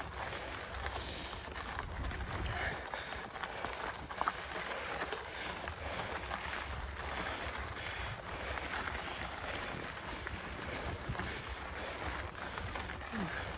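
Mountain bike climbing a dirt trail: tyre and ride noise with wind rumbling on the microphone, and hard breathing in a steady rhythm, about once a second.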